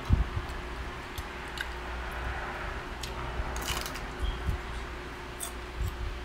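Eating sounds: small clicks and scrapes of a utensil on a plate and chewing, with a low thump just after the start and a short scrape or crunch a little past the middle. A steady low hum runs underneath.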